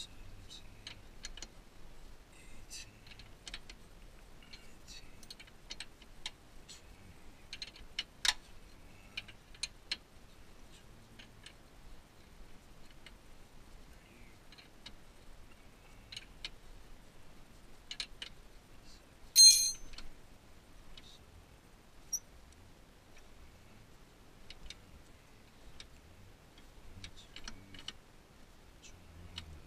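Ratchet wrench clicking in short, irregular runs as it turns the lower nut of a front sway bar end link, with one louder metallic clink that rings briefly partway through.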